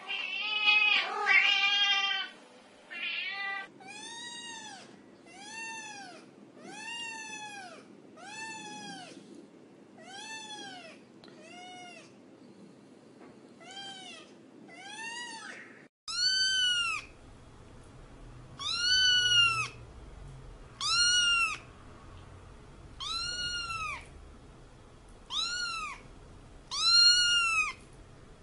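Cat meowing over and over: a long wavering meow at the start, then short rising-and-falling meows about one a second; after a sudden break near the middle the meows come louder and higher, about one every two seconds.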